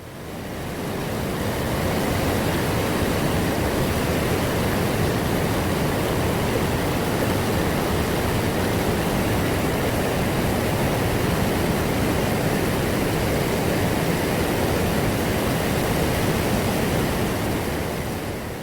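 Rushing water of a mountain valley stream: a steady, even rush that fades in over the first couple of seconds and fades out near the end.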